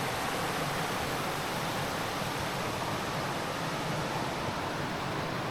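Steady rushing of river water running over the limestone shoals and a small drop of the Suwannee River, an even noise with no breaks.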